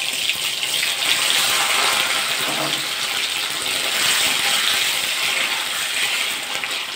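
Paneer cubes sizzling as they fry in hot oil with a little ghee in a steel kadai. There is a steady dense hiss with fine crackle, and a spatula stirs and turns the cubes.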